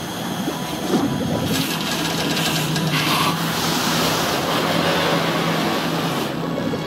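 Film sound design of churning water: a loud, continuous rushing hiss over a steady low hum, the hiss swelling about a second and a half in.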